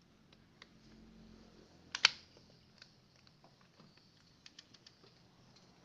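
Scattered light clicks and taps of hands and tools working at a motorcycle engine casing while oily residue around the gear position sensor is cleaned off, with one sharper click about two seconds in.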